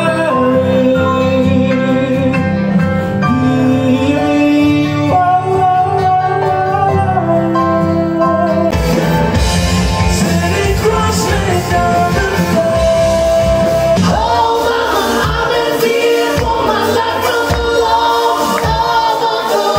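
Live band with a lead singer: long held sung notes over sustained chords, and about nine seconds in a steady drum beat comes in and the music gets fuller.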